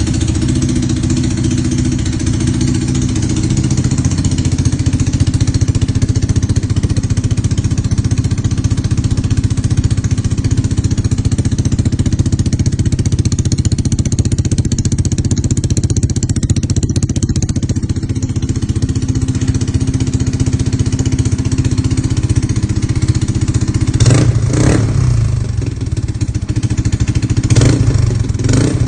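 Motorcycle engine running through a Daeng / Cha / Apido replica aftermarket exhaust pipe, idling steadily, with two short throttle blips near the end.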